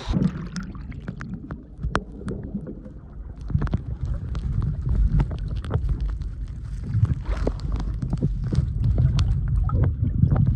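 Muffled water sloshing and gurgling around the microphone, with scattered clicks and knocks. It starts suddenly, replacing the steady hiss of the falls.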